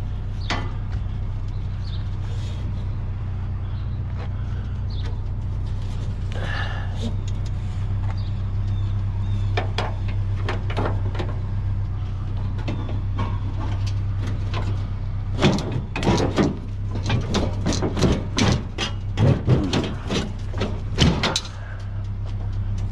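Scrap items being handled and shifted while loading a truck, over a steady low hum: scattered knocks, then about fifteen seconds in a run of rapid clattering and banging that lasts some six seconds.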